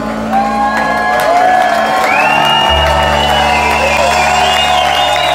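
Live band of fiddle, guitars and upright bass holding a closing chord, with the crowd cheering, whooping and whistling over it.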